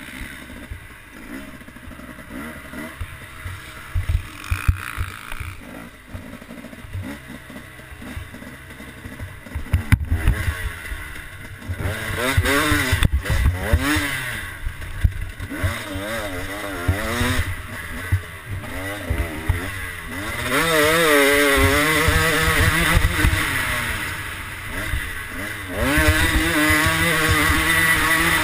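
KTM 250 two-stroke motocross bike's engine heard from the rider's helmet, revving up and dropping back again and again as it is ridden, with knocks over the bumps. It is quieter and rougher for the first ten seconds or so, then louder, with repeated rises and falls in revs and long high-revving pulls near the end.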